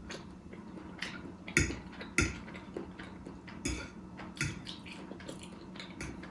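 Fork or other eating utensil clicking and scraping against a plate of spaghetti, a few separate sharp clicks.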